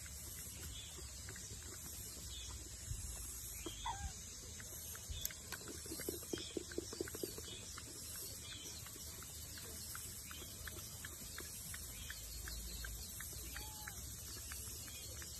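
Steady high-pitched insect drone, with a short run of rapid clucking grunts about six seconds in and a faint single chirp shortly before.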